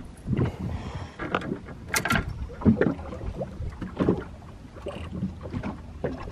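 Small waves slapping and knocking irregularly against the hull of a small drifting boat, over a low wind rumble.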